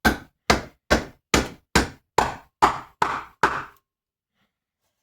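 Nine steady hammer blows, about two and a half a second, driving the leftover tube of a Mauser stock's disassembly disc out of the stock; each strike rings briefly, and they stop a little before four seconds in.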